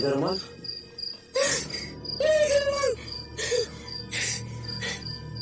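Crickets chirping steadily, about three chirps a second. Over them come a few short wavering cries and breathy rasps, which are the loudest sounds.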